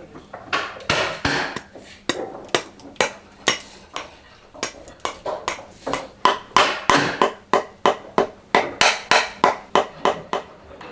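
Hammering on wood with a hand tool: sharp blows, uneven at first, then a quick steady run of about three strikes a second in the second half.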